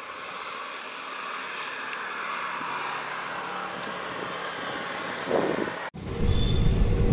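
Train running, a steady rushing noise with a faint low hum. About six seconds in it cuts abruptly to a louder, deeper rumble of the train with brief high squeals.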